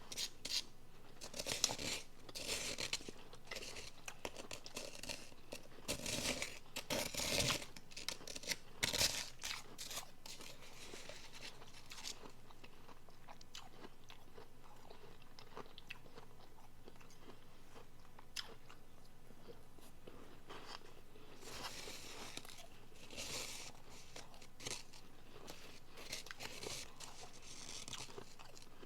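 Crunching and chewing of soft refrozen powdery blender ice. A run of loud crunchy bites fills the first ten seconds, then quieter chewing, with a few more crunches about three-quarters of the way through.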